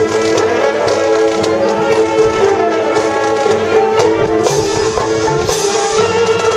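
Marching band playing its field show: brass holding sustained chords over the percussion section, with sharp percussion hits.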